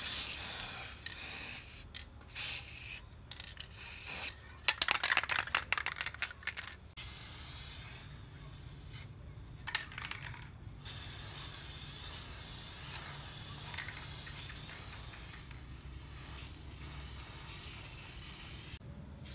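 Aerosol spray can hissing in several bursts with short breaks as it is sprayed onto a bicycle, and a quick run of sharp clicks about five seconds in.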